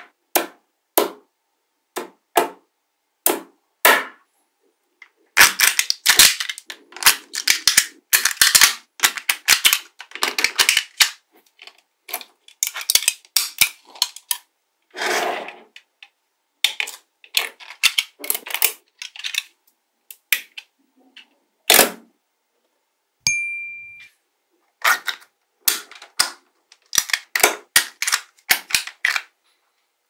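Small magnetic balls clicking and snapping together as hands press and shape them into a block, in quick runs of sharp clicks broken by pauses, with one heavier knock about three-quarters in.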